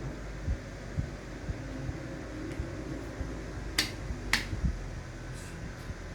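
Two sharp clicks about half a second apart, from small hard parts of a car door latch being handled and fitted, over light knocks and a steady low hum.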